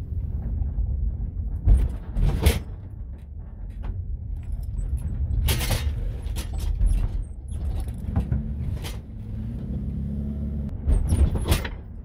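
Van driving, heard from inside its cargo area: a steady low engine and road rumble, with several sharp knocks and rattles as the load shifts on sharp turns.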